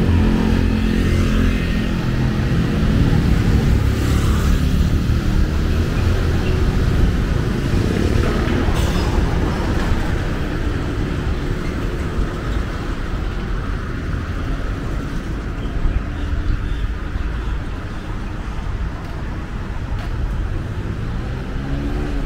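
Street traffic: cars and motorbikes running along a town road, a steady engine rumble, with a motorbike passing close in the first seconds.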